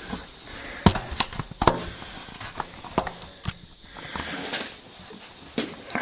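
Hand tools at work on machinery: several sharp clicks and knocks at uneven intervals, with a short hiss about four seconds in.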